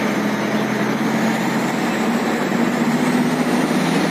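UD Nissan heavy truck's diesel engine running while driving, with a thin high turbo whistle that rises slowly in pitch over the engine's steady hum.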